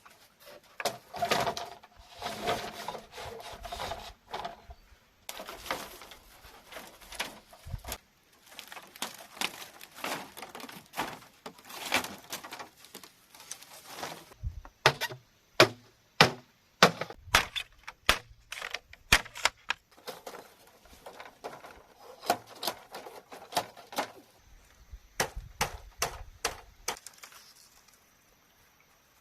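Bamboo being chopped and split: sharp woody strikes with cracking and splintering between them, and a quick run of strikes, about two a second, around the middle.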